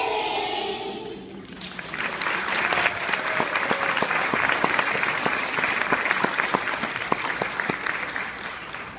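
Children's singing ends about a second in, then an audience applauds with a dense crackle of claps that fades near the end.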